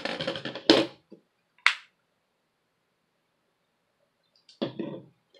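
Handling noises from a laptop motherboard being moved and set down on a table. A short scuffing rustle with a loud knock inside it comes at the start, a sharp click follows about a second later, and another brief rustle comes near the end.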